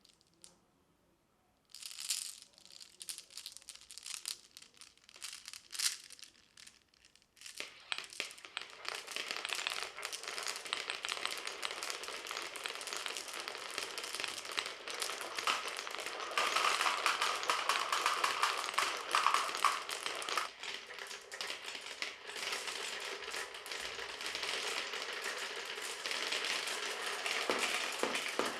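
Marbles clattering down a marble run: a few scattered clicks at first, then from about seven seconds in a steady busy rattle of many marbles rolling and clicking along the track.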